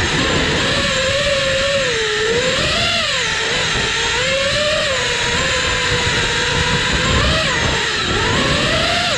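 iFlight Nazgul5 V2 5-inch FPV quadcopter on a 4S battery, its brushless motors and propellers whining in flight. The pitch keeps rising and falling with the throttle. Heard from the drone's onboard camera, with wind rushing past the microphone.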